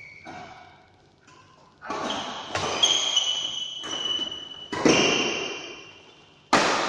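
Badminton rally: sharp racket-on-shuttlecock hits every second or two, echoing through the hall, the loudest near the end. Shoes squeak briefly on the court floor in between.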